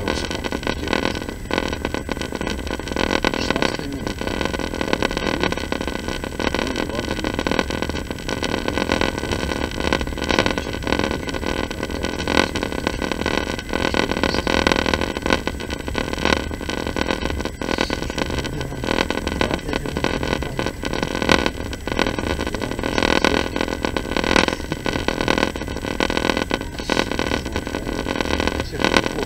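Passenger train running, heard from inside the carriage: a steady rumble of wheels on rails with constant rattling and clicking.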